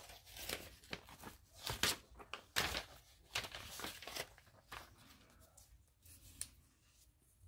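Paper being handled: a run of short crackles, crinkles and scrapes as magazine pages and cut-outs are moved about, thinning out to a few faint ticks after about five seconds.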